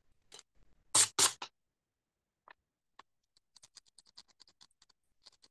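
A fine blade scraping dried ink off egg-coated ahar paper to erase a letter, heard as a run of quick, light scratches in the second half. About a second in there are two louder short sounds close together.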